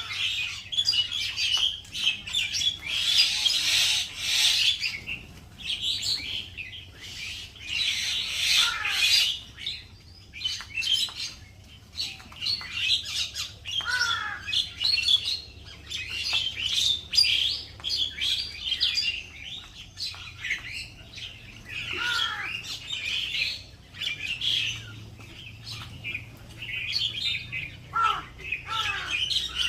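Several birds chirping and twittering without pause, with a few short calls that fall in pitch now and then.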